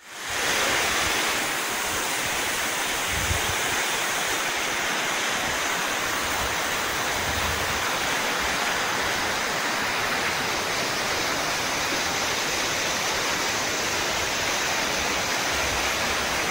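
Iguazú Falls: the muddy, high-flowing Iguazú River plunging over the brink of the falls, making a steady, unbroken rush of falling water.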